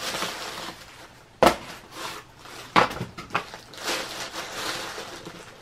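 Rustling of packaging as a new pair of boots is unpacked by hand, with a few sharp knocks, the loudest about a second and a half in and another near the three-second mark.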